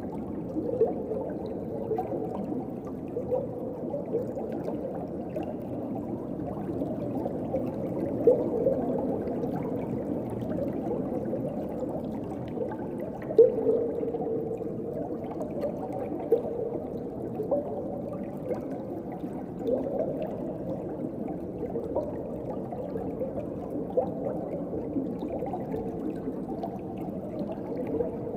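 Muffled underwater water ambience: a steady dull rush of moving water with small bubble pops and gurgles every second or two, one louder pop about halfway through.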